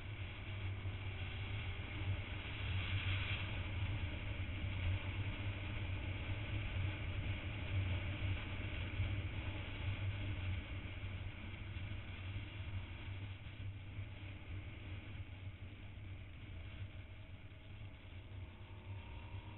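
Riding on a motorcycle: wind rush over the microphone and engine drone make a steady low rumble, which swells in the first half and eases off later.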